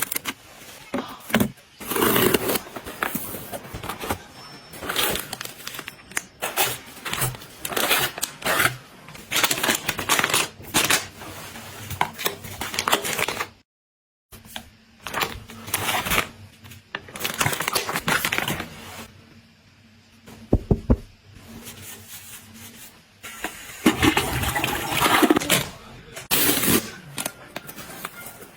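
Irregular household handling noises from cleaning and organizing: rustling, clicks and light knocks of objects being picked up and set down. The sound drops out completely for about half a second a little before the middle, at an edit.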